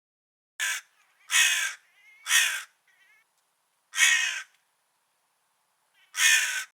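A crow cawing: five harsh caws at uneven intervals, the first shorter, with a longer gap before the last two.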